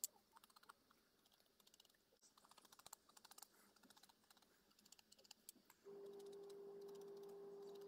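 Faint scratching and light tapping of a felt-tip permanent marker drawing stripes on a foam sponge lure tail. About six seconds in, a faint steady hum starts.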